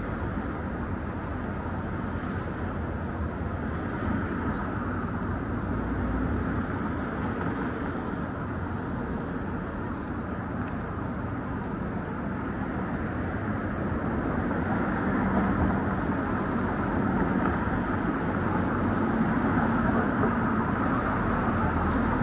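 City traffic ambience: a steady noise of passing cars, growing a little louder over the second half.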